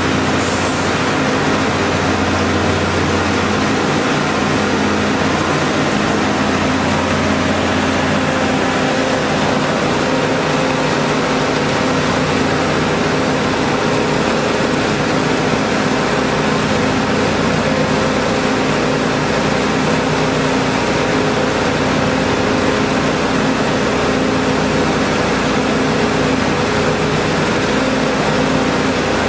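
Decanter centrifuge and its solids-discharge screw conveyor running: a loud, steady machine drone with several constant hum tones. The deepest hum eases off after the first several seconds.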